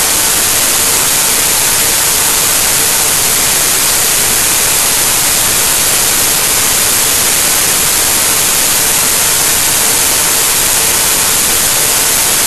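Loud, steady static hiss, brightest in the treble, with no change or events in it: garbled digital noise instead of a soundtrack.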